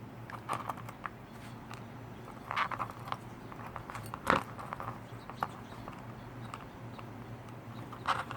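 Scattered small clicks, taps and scrapes of hands and small tools handling the tiny parts of a brushed micro quadcopter being taken apart, with one sharper click about four seconds in, over a faint steady hum.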